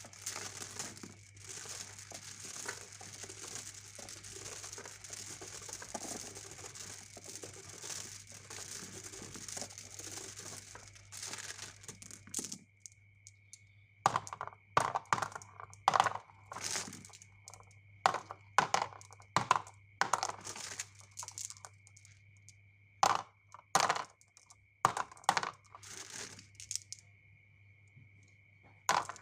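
Marbles on a HABA wooden marble run: a continuous rolling rattle for about the first twelve seconds, then stops, followed by a string of separate sharp clacks and knocks as marbles drop and strike wood and each other.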